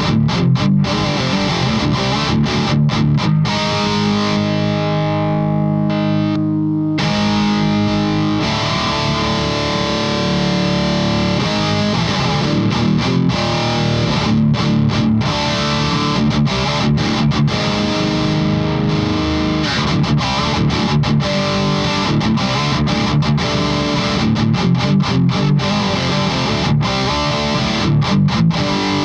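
High-gain distorted electric guitar riffing: a PRS SE played through a Victory Super Kraken amp, boosted by a Fortin overdrive pedal. Choppy riffs with sharp stops, chords held out between about four and seven seconds in, and a brief break just before seven seconds.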